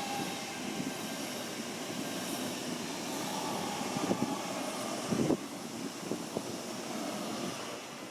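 A train running past with steady rolling and motor noise and faint whining tones. A single knock sounds about five seconds in.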